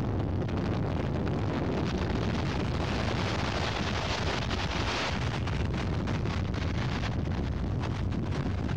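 Strong tornado wind rushing and buffeting the microphone, which is under a highway overpass as the tornado approaches. It swells for a couple of seconds about three seconds in.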